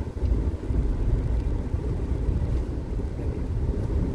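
Steady low rumble of a car's engine and tyres heard from inside the cabin as it drives slowly.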